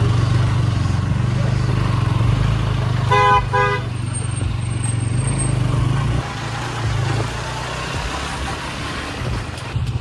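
Motorcycle engine running at low riding speed, with a horn giving two short toots about three seconds in. The engine gets a little quieter after about six seconds.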